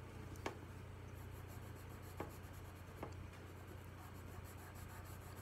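Colored pencil scratching faintly on paper in short repeated strokes, with a few light ticks.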